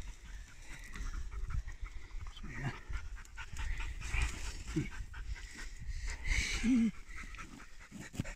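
A dog panting quickly and steadily.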